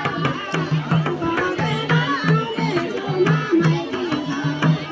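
Nepali folk music for Teej dancing: a madal drum keeps a steady beat of about three strokes a second under a melody.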